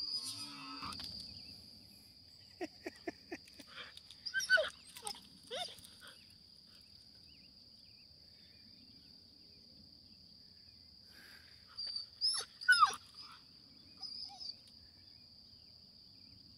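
Carolina dog whining in short high-pitched cries that slide down in pitch, in two bunches about four seconds in and again around twelve seconds in, excited by a skunk crossing just ahead.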